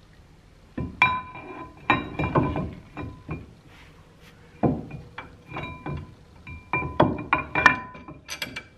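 Metal clanks and clinks as a UCF20 four-piston brake caliper is worked into place over a slotted brake rotor. There is a string of knocks in clusters from about a second in, each followed by a brief ringing tone from the metal.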